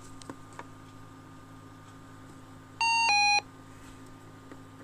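Electronic two-note beep from a radio, a higher tone stepping down to a slightly lower one, about three seconds in. A short single beep follows near the end, with a few faint button clicks and a low steady hum from the radio set-up.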